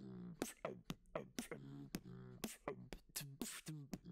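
Beatboxing: a fast rhythm of sharp mouth-percussion hits, about four or five a second, each followed by a short pitched tone that slides down.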